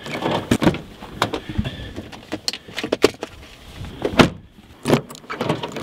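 Holden Jackaroo's rear side door being unlatched by its outside handle and opened, a run of sharp clicks and knocks from the latch and door, with the loudest knock about four seconds in.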